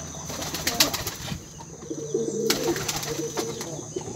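Male domestic pigeon cooing to court a female, a low warbling coo repeated over and over in the second half. A few sharp clicks about a second in.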